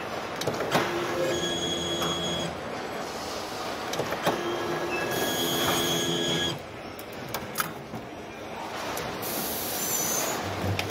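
A pistol-grip power wrench on a long extension shaft spins in two runs of about two seconds each, with a steady whine, over the hum of the assembly line. A few sharp clicks fall between the runs.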